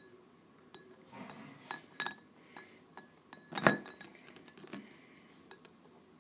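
Brass Zippo lighter knocking against a drinking glass holding water: several light clinks with a brief glassy ring, the loudest a little past halfway.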